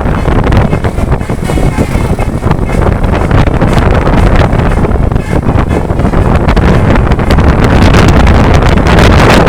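Heavy wind buffeting the microphone over steady vehicle and road noise, recorded on the move.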